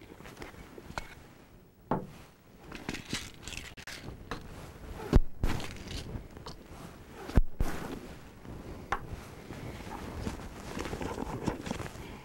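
Objects being taken out of a briefcase and set down on a small table: rustling and scraping, scattered clicks, and two sharper knocks about five and seven seconds in.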